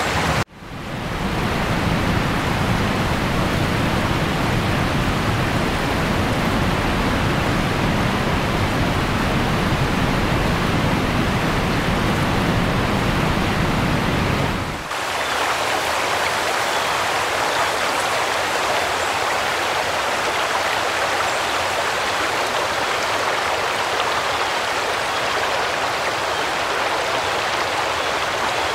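Steady rushing of flowing floodwater. There is a brief dropout right at the start, and about halfway the deep rumble falls away, leaving a lighter hiss.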